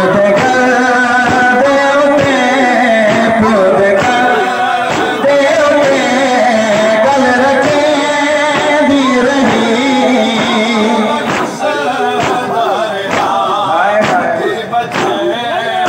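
A male voice sings a noha (Shia lament) over loudspeakers in long held, wavering lines, with hands slapping on bare chests in matam.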